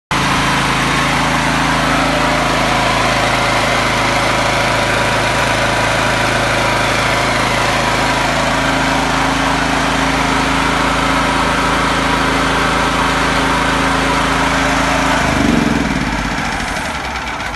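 XLNT 5500 W portable petrol generator running steadily and loudly. About fifteen and a half seconds in it is switched off at its engine switch, and the engine winds down.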